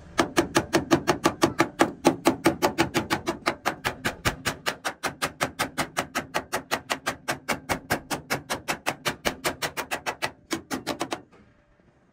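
A hand hammer beating sheet-metal truck cabin panels in a rapid, even run of blows, about five a second. It breaks off briefly near the end, gives a few more blows and stops abruptly.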